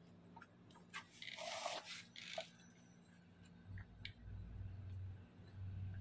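A few light clicks and a short scrape of small metal parts being handled, most likely the scooter's variator and its roller weights, followed by a low hum in the second half.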